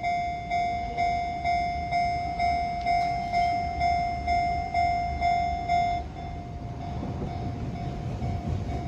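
Japanese railway level-crossing alarm ringing its 'kan-kan' tone, about two strikes a second. It stops abruptly about six seconds in, leaving a low rumble.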